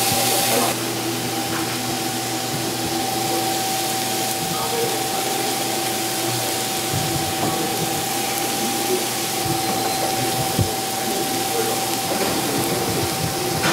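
Steady machine hum and hiss of kitchen equipment, with a constant high whine; the hiss drops slightly less than a second in, and a few light knocks come in the second half.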